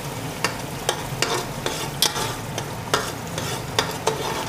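Onion, garlic and tomato paste with spices frying in oil in an aluminium pot, sizzling steadily as the masala base for a gravy is fried. A metal spoon stirs it, clinking and scraping against the pot about twice a second.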